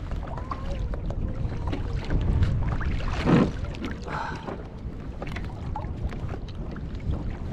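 Wind buffeting the microphone over water sounds around a kayak at sea, with scattered small clicks and knocks and one louder brief burst about three seconds in.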